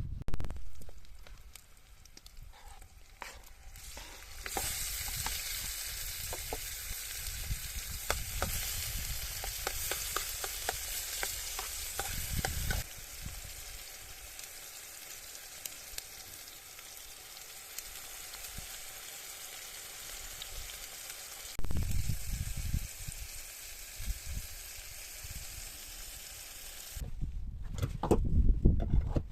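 Food sizzling in a pan over a campfire, a steady hiss with scattered crackling pops. The sizzle quietens about halfway through and stops near the end, with a couple of low bumps from the pan being handled.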